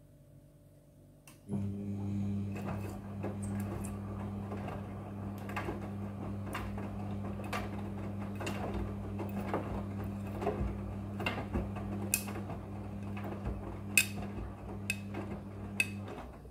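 Midea front-loading washing machine running a phase of its cycle: a steady motor or pump hum switches on about a second and a half in and cuts off just before the end, under a rustling wash noise with scattered light clicks and knocks from the load in the drum.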